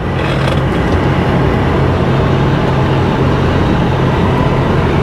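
Tractor-unit truck engine running steadily with a low hum, heard from inside the cab as the truck rolls slowly forward.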